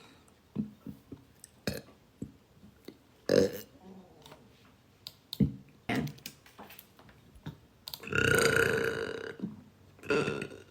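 A woman burping: one long drawn-out burp about eight seconds in, lasting over a second, and a shorter one near the end, with short clicks and knocks scattered between.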